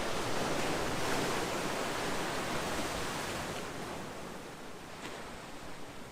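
Calm ocean waves: a wave breaks and washes in, loudest about a second in, then slowly fades as the water draws back.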